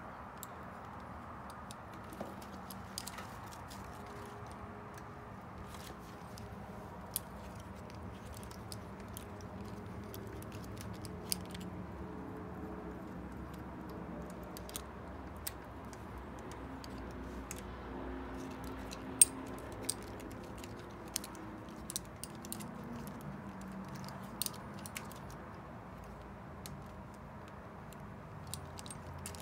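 Scattered metal clicks and clinks of a folding hex-key multi-tool being handled and turned on the bolts of a bicycle handlebar stem, over a steady low room hum. The clicks come irregularly, one sharper than the rest about two-thirds of the way through.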